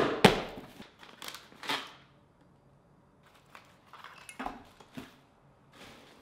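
A small cardboard package being torn open by hand: loud tearing and rustling in the first two seconds, then softer crinkling and handling of the packing.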